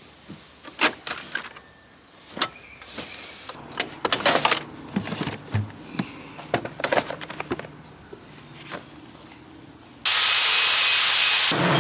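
Scattered clicks and knocks of handling, then about ten seconds in a sudden loud, steady hiss that lasts about a second and a half.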